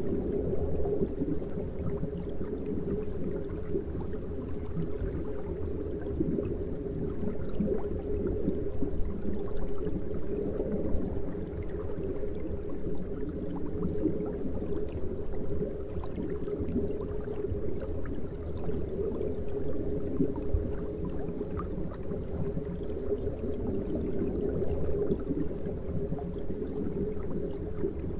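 Aquarium water bubbling and churning steadily from aeration.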